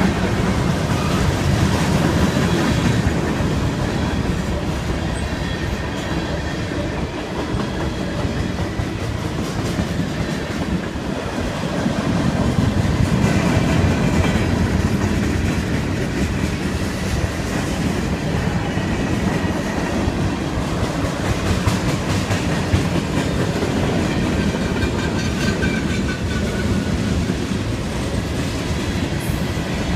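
Norfolk Southern mixed freight train's cars rolling past close by: a steady, loud rumble with the wheels clattering over the rail joints.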